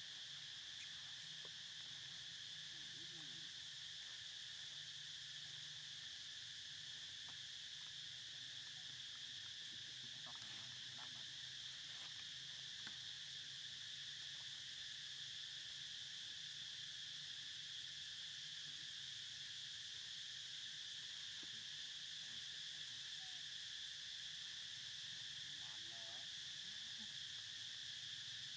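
Steady chorus of insects, a continuous high-pitched drone that holds level throughout.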